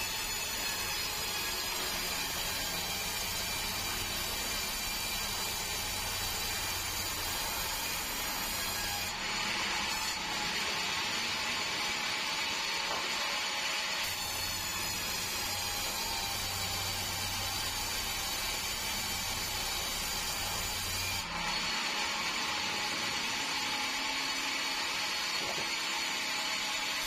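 Sawmill band saw running and cutting through a large log: a steady rasping, whirring noise of blade in wood. A low hum under it drops out twice and comes back once.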